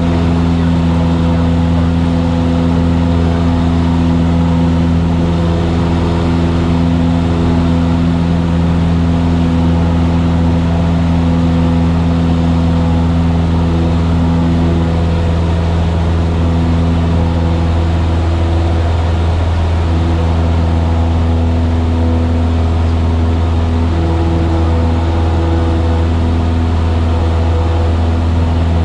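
Steady drone of a light single-engine airplane's piston engine and propeller in flight.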